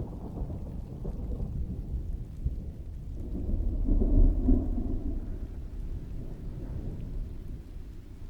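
Heavy rain falling steadily, with a roll of distant thunder that builds about three seconds in, peaks a second later and rumbles away.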